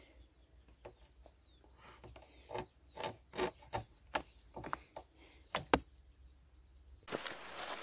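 Cord rubbing and tapping against a motorcycle's rear luggage carrier as it is untied by hand: a string of irregular soft clicks and scrapes. Near the end a louder outdoor hiss comes in.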